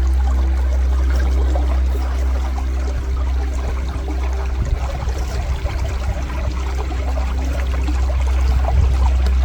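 River water flowing steadily, an even rushing sound over a strong low rumble.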